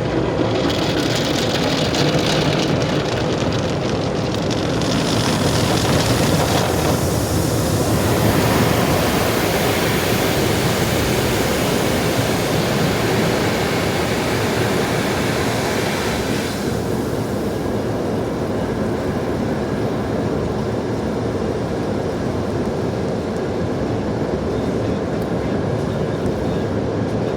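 Steady rushing noise of an automatic car wash heard from inside the car. The high hiss drops away about 16 seconds in, leaving a lower rumble.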